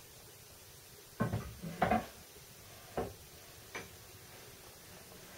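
A handful of metal clunks and knocks from the X-axis ball screw, ball nut and table being handled and set onto the saddle of a PM-25 milling machine. They fall between about one and four seconds in, two of them close together near the middle.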